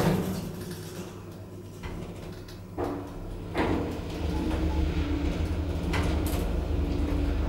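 Schindler traction elevator: the car doors shut with a thump, a few clicks follow as the machinery engages, and from about four seconds in a steady low hum sets in as the car travels.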